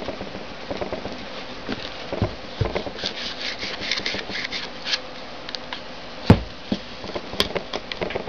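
A hollowed-out plastic pen tube being pushed and worked down into an apple from the top: scattered handling clicks and a run of quick scratchy rasps, with one sharp knock about six seconds in.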